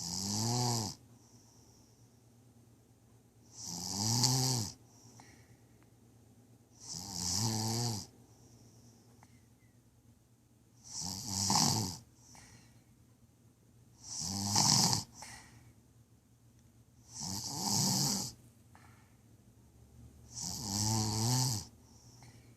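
Snoring: seven snores about three and a half seconds apart, each lasting about a second, with quiet between breaths.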